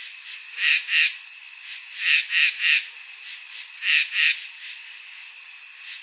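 A night chorus by a pond: a frog calling in short runs of two or three quick, high notes every second or two, over a steady high insect trill.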